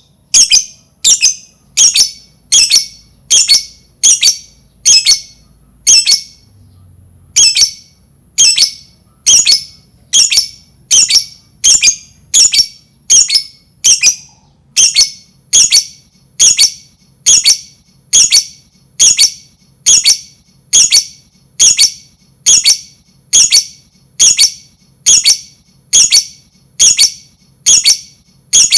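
Lovebird giving short, sharp, high-pitched squawking calls, one after another, about three every two seconds, with a brief pause about six seconds in. The calls are a lure call meant to set other lovebirds calling.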